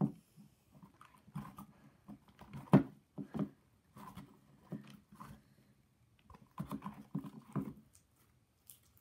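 Sticky homemade slime squelching and popping in a bowl as it is pulled and squeezed by hand, in short irregular bursts with the loudest pop a little under three seconds in.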